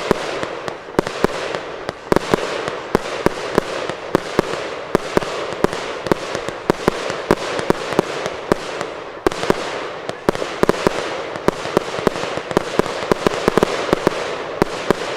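Aerial fireworks going off in a sustained barrage: continuous crackling with many sharp pops and reports, several a second, at a steady level.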